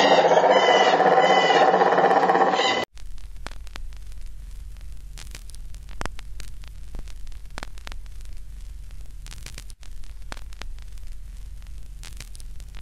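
A loud pitched sound with several tones cuts off abruptly about three seconds in. It gives way to steady static hiss with a low mains hum and scattered crackles.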